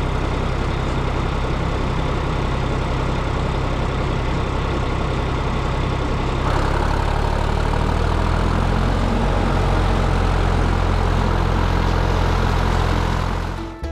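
Diesel tractor engine running steadily while pulling a batwing rotary mower. About six and a half seconds in the sound shifts, louder and deeper, and it fades out just before the end.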